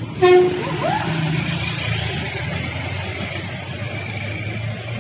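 A vehicle horn gives one short toot, the loudest sound, over the steady low running of a diesel truck engine as a truck heavily loaded with sugarcane passes and pulls away under load.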